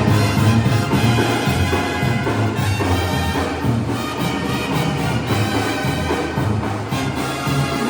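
Mexican banda brass band playing: horns over a bass line that steps from note to note.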